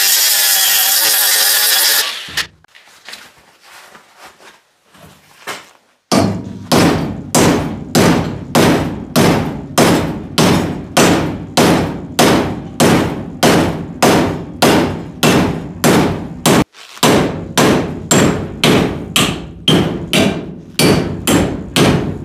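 An angle grinder grinds down an aluminium weld seam for about two seconds and stops suddenly. From about six seconds in, a hammer strikes a MIG-welded aluminium square tube clamped in a vise over and over, about two blows a second, as a destructive strike test of the weld, which tears the tube off just beside the seam.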